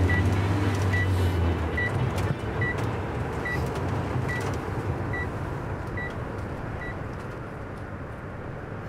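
A short, high electronic beep repeating a little more than once a second, nine times, stopping about seven seconds in, over a steady background rumble; a low hum cuts out about a second and a half in.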